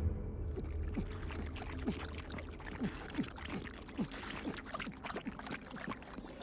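Someone gulping down a drink in quick, even swallows, about three a second, with a low rumble underneath.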